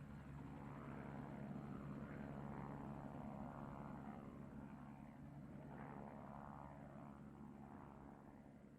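Helicopter in flight: a faint, steady low hum with a wavering mid-range, slowly fading toward the end.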